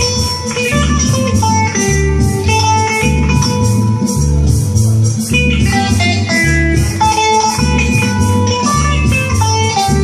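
Amplified electric guitar playing a melodic instrumental line of single notes, over a steady, evenly pulsing bass beat.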